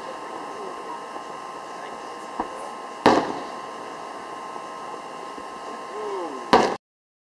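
Aerial fireworks shells bursting: two loud booms about three and a half seconds apart, each trailing off briefly, with a fainter pop before the first. Voices murmur underneath, and the sound cuts off suddenly just before the end.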